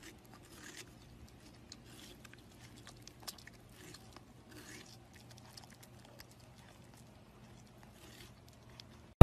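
French bulldog puppy eating watermelon flesh: quiet, irregular chewing, a scatter of soft clicks.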